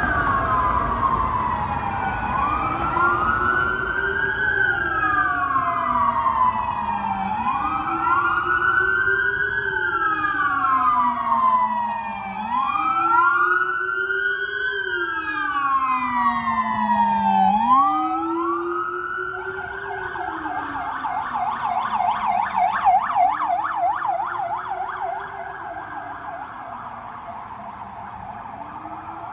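Police escort sirens wailing out of step with one another, rising and falling every few seconds, with a Rumbler low-frequency siren adding a deep wail in time with them. About two-thirds of the way through they switch to a fast yelp for a few seconds, then go back to a wail that fades as the vehicles pass.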